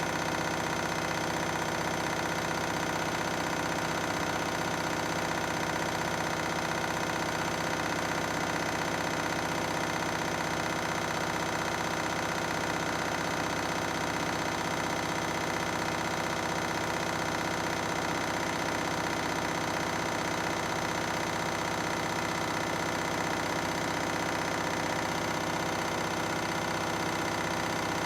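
Washing machine drum spinning at a steady high speed on a 1600 rpm spin, with a constant motor whine and no change in pace.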